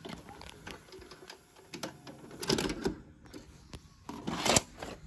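Panasonic PV-V4022 four-head VHS recorder's tape mechanism clicking and whirring as it unloads and ejects a cassette. A denser run of clicks comes about halfway, and the loudest clatter comes near the end as the cassette comes out of the slot and is handled.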